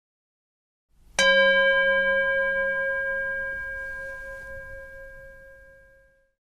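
A bell struck once about a second in, ringing with several overtones and fading out slowly over about five seconds.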